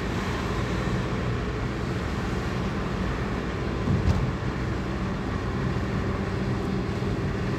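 Steady low rumble of a car's engine and tyres on the road, heard from inside the cabin while driving, with one brief knock about halfway through.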